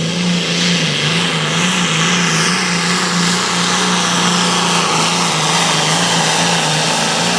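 John Deere hot farm pulling tractor's engine running wide open under full load while pulling the sled down the track. It holds a steady pitch with a slight waver.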